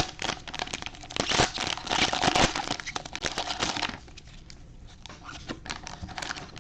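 Packaging crinkling and rustling as it is handled, dense for about four seconds, then thinning to a few scattered light clicks.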